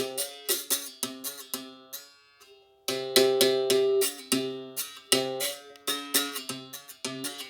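Berimbau struck with its stick in a steady rhythmic pattern, sharp strikes ringing out on changing pitches of the wire. It breaks off briefly about two seconds in, then picks up again.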